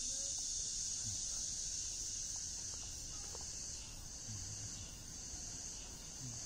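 Insects in the street trees trilling in a steady, high-pitched chorus that eases a little about halfway through.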